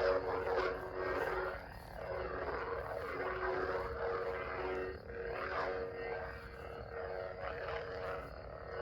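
Electronic lightsaber's sound-board hum, a steady buzzing tone, with repeated whooshing swing sounds that swell and fade as the lit blade is swung.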